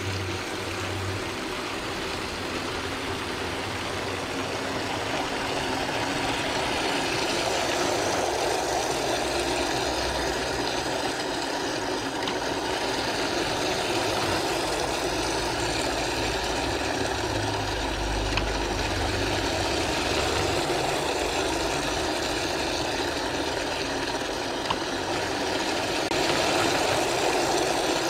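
Water spraying from a hose nozzle into a plastic pump box while a Seaflo 600-gallon-per-hour bilge pump runs continuously under it, a steady motor hum beneath the splashing as the pump sends the water out of its outlet.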